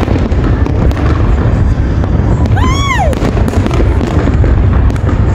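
Aerial fireworks show: a continuous rumble of booms with sharp bangs from many bursting shells. A brief high tone rises and falls about halfway through.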